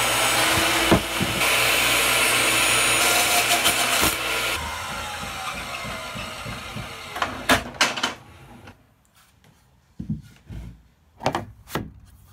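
Table saw ripping a bamboo floor board, then the blade spinning down with a falling whine after about four and a half seconds. Near the end, a few sharp knocks.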